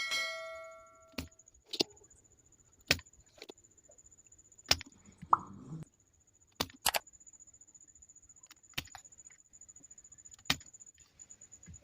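Irregular sharp clicks and taps of soldering tools on a circuit board as the pins of an amplifier IC are desoldered, opening with a short metallic ring and with a brief scraping sound about five seconds in. A faint steady high whine runs underneath.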